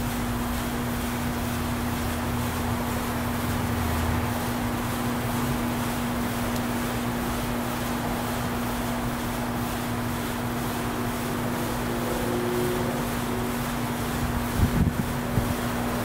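Steady, even hum of a colony of honey bees swarming over the open frames of a full hive, with wind rumbling on the microphone in the first few seconds. A few low knocks about a second before the end, as a frame is worked free of the box.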